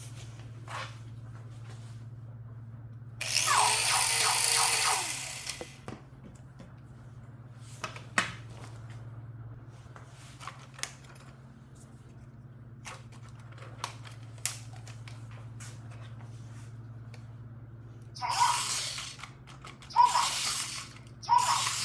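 A toy RC robot's small gear motors whirring in a burst of about two and a half seconds, with scattered clicks over a steady low hum. Several short, louder bursts come near the end.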